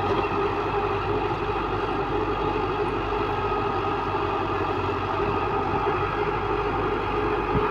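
Excavator's diesel engine running at a steady speed, with no revving or change in pitch.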